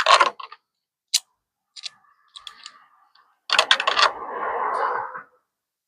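Small hand tools and parts clicking and rattling while a motorcycle is being fastened up. There are a few sharp clicks, a quick run of clicks past the middle, then a scraping rustle for a second or so.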